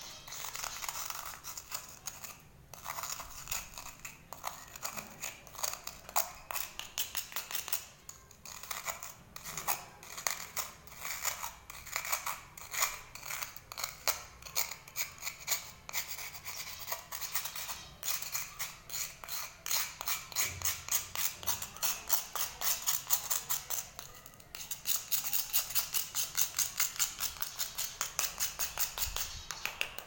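Knife blade scraping along a cuttlefish bone, rasping off chalky shavings in quick repeated strokes. There are a couple of short pauses, and a faster, more even run of strokes over the last five seconds.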